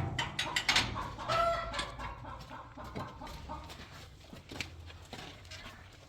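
Domestic chickens clucking, with one short pitched call about a second and a half in, over a quick run of light knocks and clicks early on that then thin out.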